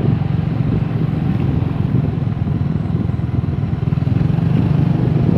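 Motorcycle running at a steady cruise, heard from the rider's seat as a constant low rumble mixed with wind and road noise.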